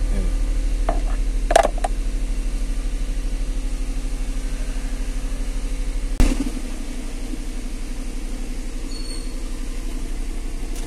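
Car engine idling, heard from inside the cabin as a steady low hum with a fast, even pulse. A sharp click comes about a second and a half in and a knock about six seconds in, after which the hum is a little quieter.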